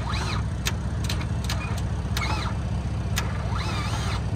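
Ford Fusion engine running on caulking in place of engine oil, a steady drone with sharp knocks every half second or so and three squeals that rise and then fall.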